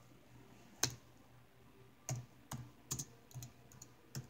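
Laptop keyboard keys pressed in irregular clicks, about eight of them, the first about a second in the loudest, over a faint low hum.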